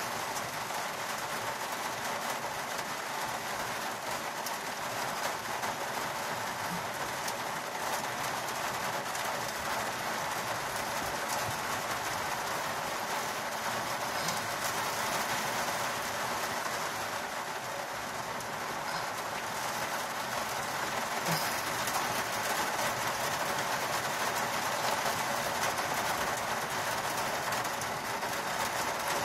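Heavy rain pouring down hard, a steady dense hiss that grows a little louder in the second half.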